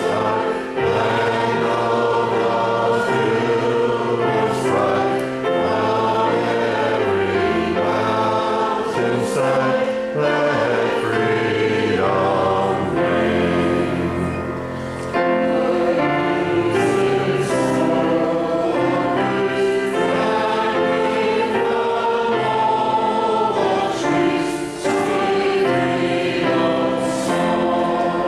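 Church congregation singing a hymn together over sustained low accompanying notes, with short breaks between the lines.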